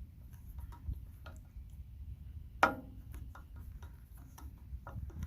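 Scattered light clicks and taps of a screwdriver working at a small engine's air filter cover to pry it off, with one sharper click about halfway through.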